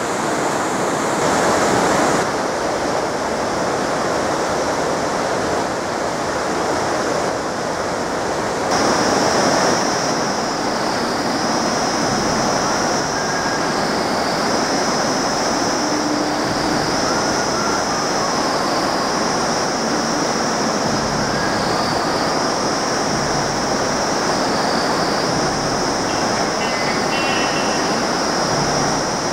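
Rushing river water below a suspension bridge, a loud, steady roar. From about nine seconds in, a high buzz repeats in phrases of a couple of seconds each.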